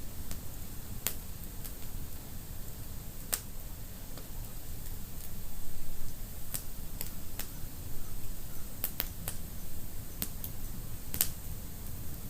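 Wood fire in a fireplace crackling, with about ten sharp pops at irregular intervals over a steady low rumble.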